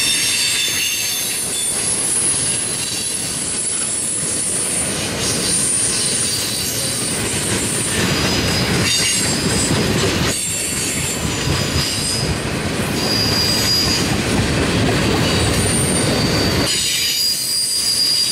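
Tank cars of a freight oil train rolling past close by: a steady rumble of steel wheels on the rails, with high-pitched wheel squeals that come and go.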